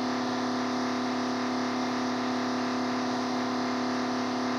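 A neighbour's power drill running steadily at one unchanging pitch, working slowly through a single hole.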